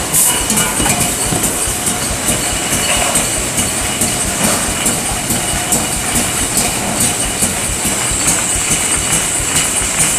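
Rotary aerosol-can leak tester with 24 test heads running at production speed: a steady, rapid, uneven clatter of metal cans and machinery, over a constant high hiss.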